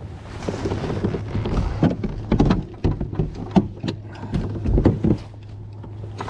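Irregular knocks, thumps and clatter of a caught bass being handled and flopping against a plastic fishing kayak and its gear while it is laid out to be measured, over a steady low hum.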